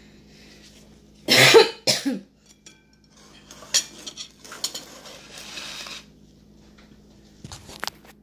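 A loud, short cough with a smaller second one right after it, about a second and a half in. Faint scattered clicks and light rustling follow.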